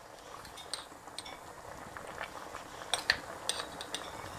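Pan of chicken and vegetable soup simmering quietly on the hob, with a few light clinks and ticks, the sharpest about three seconds in.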